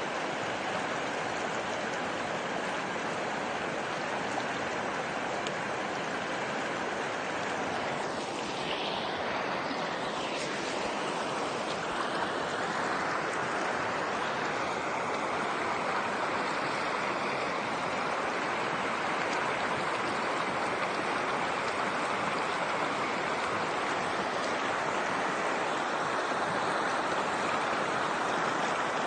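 Steady rush of a stream, a constant wash of flowing water.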